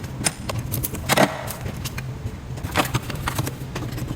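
Hand tools clinking and knocking on metal as a pickup truck's battery is disconnected and taken out: a handful of sharp clinks, the loudest about a second in and near three seconds in.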